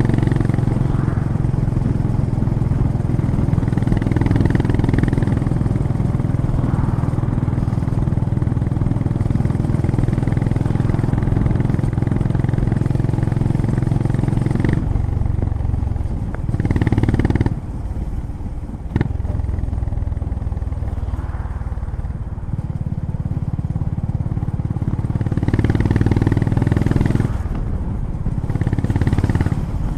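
Honda GB350's air-cooled 348 cc single-cylinder four-stroke engine and exhaust under way, pulling at a steady cruising throttle. About halfway through the throttle comes off and the note drops, with a couple of short surges and a single sharp click before it settles into steady running again, picking up near the end.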